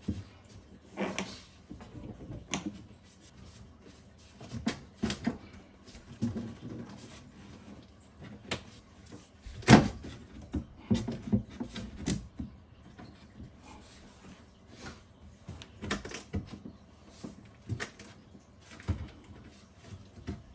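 Scattered knocks, clicks and scrapes of a cut replacement panel being handled and pushed into place in a sink-base cabinet, with one louder knock about halfway through.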